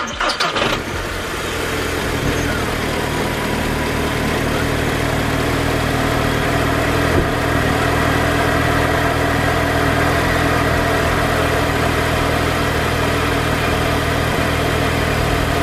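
Mk2 Audi TT engine starting up and settling into a steady idle. This is its first run after a thermostat replacement, as the freshly filled cooling system starts drawing coolant through.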